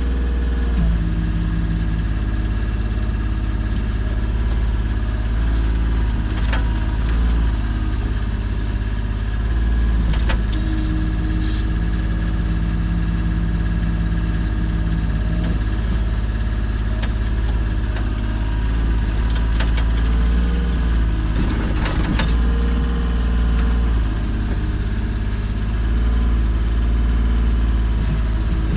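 Volvo EC25 mini excavator's diesel engine running steadily as it digs, its note dipping and shifting as the hydraulics take load, with a few sharp knocks now and then.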